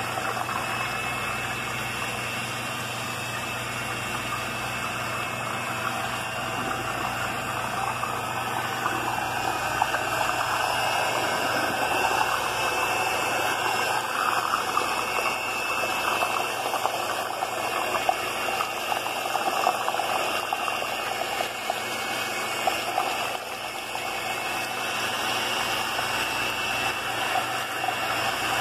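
Electric hand mixer running steadily, its motor humming as the beaters churn a thick mash of ripe bananas into a smooth pulp.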